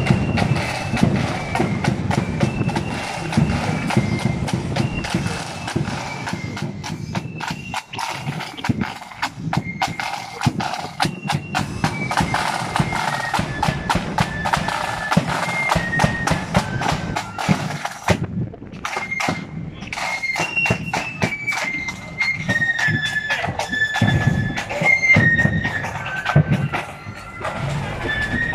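Marching flute band playing a high melody over snare drums and a bass drum.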